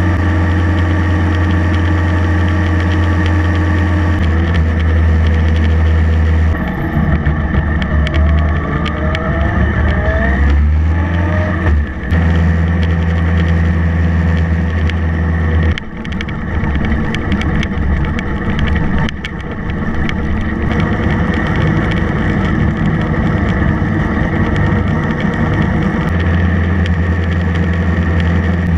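Motorcycle engine running while riding on the road, a steady low drone with a pitch that rises about ten seconds in and a few brief dips in loudness.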